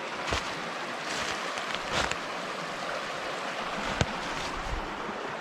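A woodland brook running steadily, with three short sharp snaps spaced about two seconds apart.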